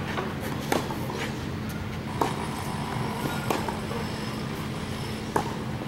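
Tennis balls struck by rackets in a baseline rally on a clay court: four sharp hits, one every one and a half seconds or so, over a steady background hum.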